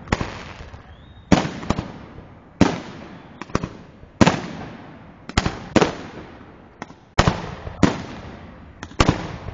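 Aerial firework shells bursting in a salute display: about a dozen sharp bangs, some in quick pairs, each fading out over a second or so before the next.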